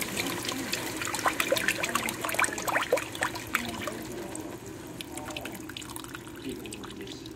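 Milk pouring into a hot pot of sautéed diced onion and red pepper, splashing, with many quick pops in the first few seconds. It thins to a light trickle near the end.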